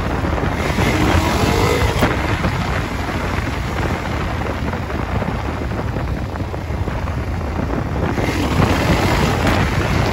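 Heavy wind noise on the microphone during a motorcycle ride, with vehicle noise underneath.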